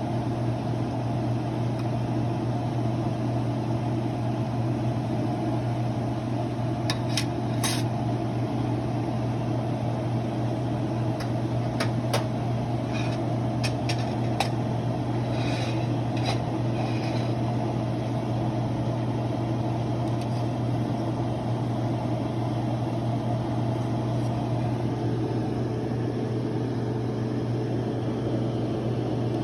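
Steady low hum of a running kitchen appliance or fan, with a few light clicks and taps about a quarter of the way in and again around the middle.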